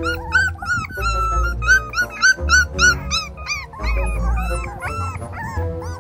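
A litter of young puppies whimpering and yipping, a rapid overlapping string of short high cries that rise and fall, over background music with a low bass.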